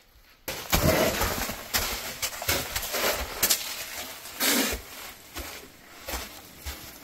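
Close scraping, scuffing and knocking as a hiker squeezes through a narrow sandstone slot, with clothing or gear rubbing against the rock and feet on sand. It starts suddenly about half a second in and eases off toward the end.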